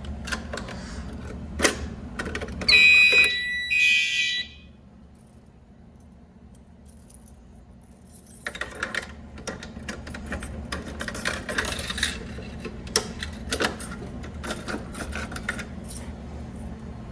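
A fire alarm sounds two short, loud blasts of steady high tone about three seconds in, then stops. Rattling clicks of handling come before the blasts and start again after a few quiet seconds.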